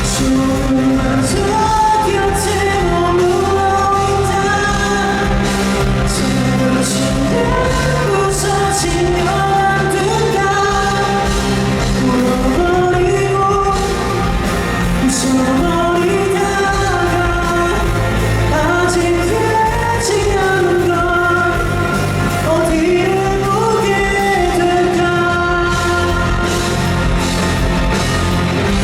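A live pop-rock song: a male singer holding a melody over a full band accompaniment, continuous and steady in loudness.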